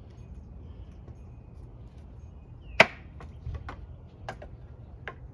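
One sharp, loud wooden knock about three seconds in, then several lighter knocks and clicks: a wooden baton striking the back of a multi-tool knife blade to split wood.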